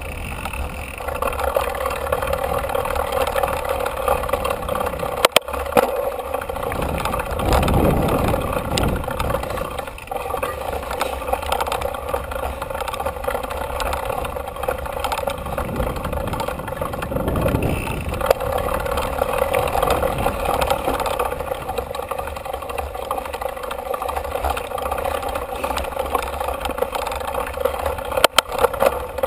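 Mountain bike rolling fast down a dirt trail: a steady rush of tyre noise and wind over the handlebar-mounted microphone, with a couple of sharp clatters from bumps.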